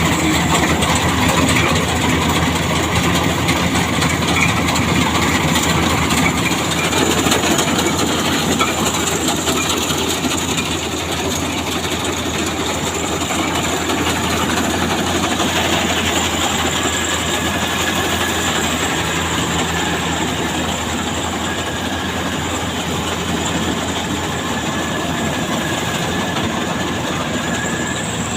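Old heavy engine running steadily, a constant low hum under a dense mechanical clatter.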